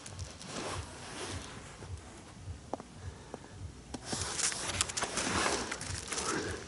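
Footsteps with rustling handling noise, which grows louder about four seconds in.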